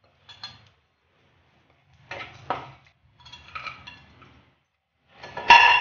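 Spatula scraping and knocking in a kadai as chopped cashews, almonds and raisins are tipped in and stirred, in a few short bursts; the loudest is a ringing clink near the end.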